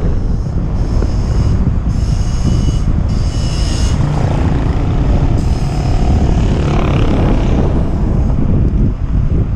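Wind buffeting the microphone during a downhill bicycle ride, a dense steady rumble, with brief faint high-pitched tones between about one and four seconds in.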